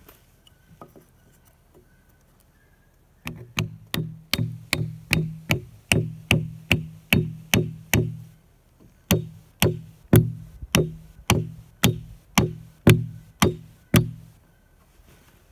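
Hammer driving nails into the wooden raised garden bed's boards and corner 2x4, in a steady run of sharp blows about two and a half a second, each with a short hollow ring from the boards. The blows begin about three seconds in and break off briefly once before a second run.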